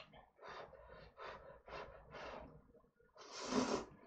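Instant ramyeon noodles being slurped from chopsticks: a few short slurps about every half second, then one longer, louder slurp about three seconds in.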